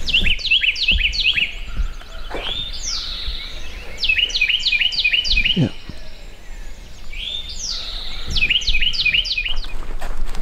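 A songbird singing the same phrase over and over, about three times: a drawn-out high whistle, then a quick run of sharply falling notes.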